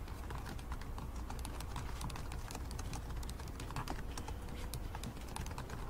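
Typing on a computer keyboard: a quick, irregular run of key clicks, several a second, over a low steady hum.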